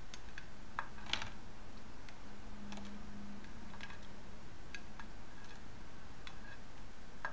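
Irregular light clicks and taps of a plastic spatula pushing cut mushroom pieces off a ceramic plate into a silicone steamer case.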